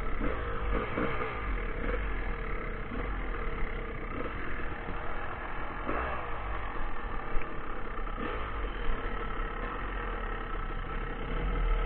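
Dirt bike engine running at a steady pitch while riding a rough dirt trail, with a low rumble of wind on the microphone and a few brief knocks from the bumpy ground.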